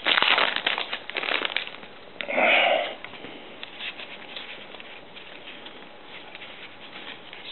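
Foil booster-pack wrapper crinkling and tearing open for the first second and a half. A loud half-second hiss follows about two and a half seconds in, then faint ticks of the cards being handled.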